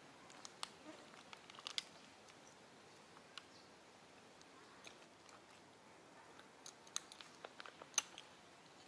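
Faint, scattered short clicks and crackles over a quiet background, in two loose clusters, the loudest near the end.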